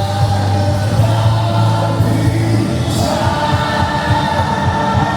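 Choral music, voices singing long held chords; the harmony changes about three seconds in.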